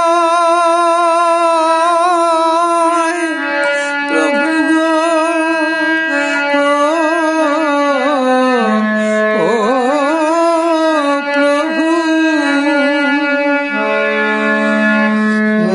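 Bengali devotional kirtan music: a melody line with vibrato and pitch slides, including a deep downward slide past the middle, over steady held notes, with no words sung.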